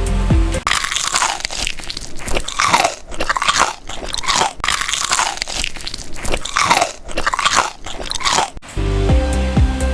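Close-up crunching and chewing while eating a sandwich: a quick series of crisp crunches, about one and a half to two a second.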